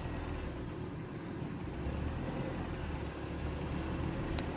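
2000 Dodge Neon's four-cylinder engine running steadily at low speed as the car drives along a trail, with a brief sharp tick near the end.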